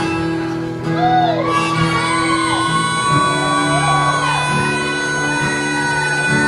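Live acoustic band music: guitar and low held notes under a wailing, wordless lead line that slides up and down in pitch, starting about a second in.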